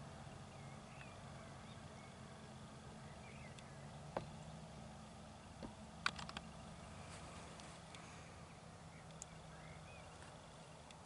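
Faint outdoor ambience: scattered distant bird chirps over a low steady hum, broken by a few sharp clicks, once about four seconds in and a quick cluster about six seconds in.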